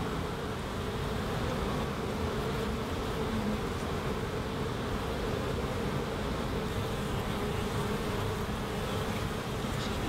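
Steady buzzing of a mass of honeybees flying around open hives.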